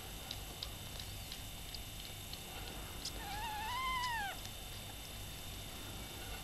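A one-day-old kitten gives a single high mew lasting about a second, rising and then falling in pitch, about halfway through.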